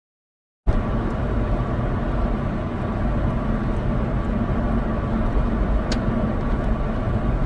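Steady road and engine noise of a moving car as picked up by its dash cam, low and rumbling, cutting in suddenly after a brief silence, with a single sharp click late on.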